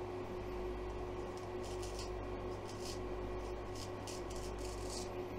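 Chinese straight razor scraping through week-old stubble on the neck: a series of short, irregular rasping strokes over a steady background hum.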